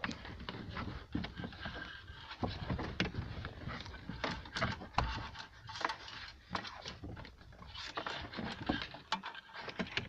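Irregular clicking, rattling and rustling of a wiring harness and plastic plug connectors being handled and pushed down into the dashboard cavity beside a car stereo head unit.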